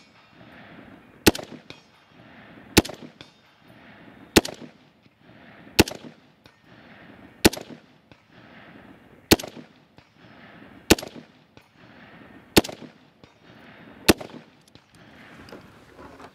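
Slow, evenly paced semi-automatic fire from a .308 (7.62×51) AR-10-type rifle: nine shots, about one every second and a half, each sharp crack followed by a short echo.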